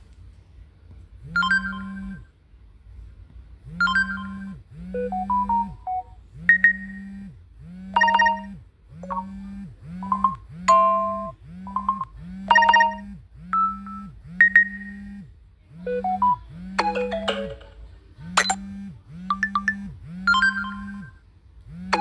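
Phone ringtone playing: a synthesized melody of short, bell-like struck notes over a repeating low bass note, starting about a second in.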